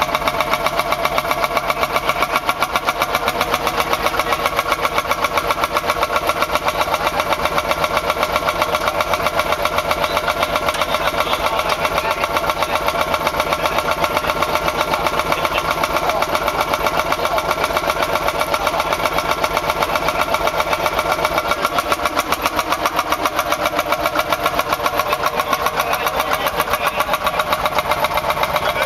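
Landini 25/30 tractor's single-cylinder two-stroke hot-bulb engine running at low speed with a rapid, even beat of exhaust pulses as the tractor is driven slowly and manoeuvred.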